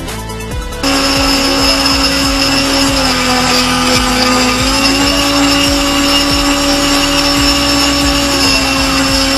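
A model hovercraft's motor spinning its propeller, heard close up as a loud, steady whine. The whine cuts in about a second in, dips slightly in pitch around three seconds and comes back up near five.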